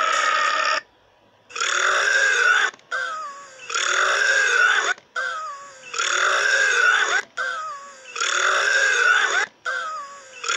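A series of loud burps, one about every two seconds, each followed by a quieter, wavering tail.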